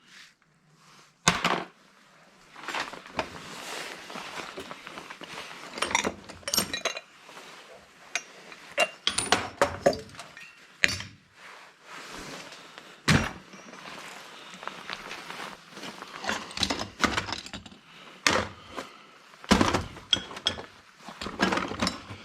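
Metal hand tools and driver bits being handled and set down while sorted into a tote and tool bags: irregular clinks, rattles and thunks, with sharp knocks about a second in and again about halfway through.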